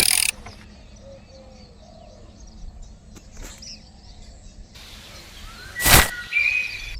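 Quiet outdoor background with faint birds chirping, and one sharp knock about six seconds in.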